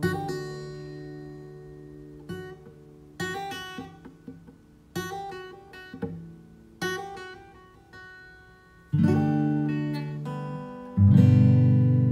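Background music on acoustic guitar: picked chords that ring out and fade every second or two, then louder strummed chords near the end.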